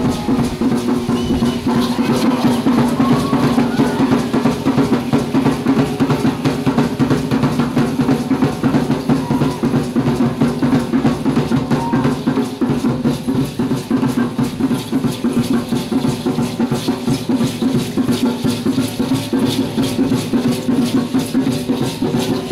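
Danza azteca music: drums beating a fast, steady rhythm over a sustained low tone.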